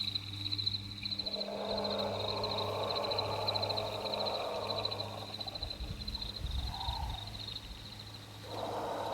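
Dinosaur sound-effect calls: a long rasping call, a low rumble, then a short call and another rasp near the end. Insects chirp rapidly and steadily over a low hum underneath.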